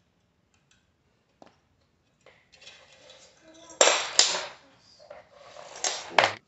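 A glass shelf scraping and clinking against a white TV stand cabinet as it is handled and fitted into place. There are two sharp knocks about four seconds in and two more near the end.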